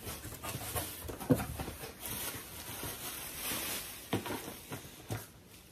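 Rustling and crinkling of packaging, with a few light knocks, as a shipping box is opened and unpacked.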